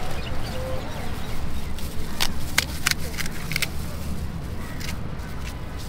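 A few sharp clicks and taps in quick succession over a steady low outdoor rumble.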